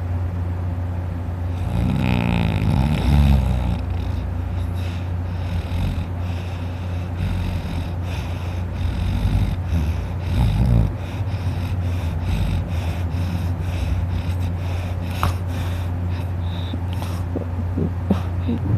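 A man snoring in his sleep, with a big pitched snore about two seconds in and another about ten seconds in, over a steady low hum.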